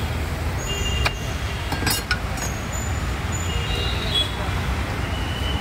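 Metal cooking utensils clinking against iron griddles, sharply about one second and two seconds in, with a thin ringing after some strikes, over a steady low rumble.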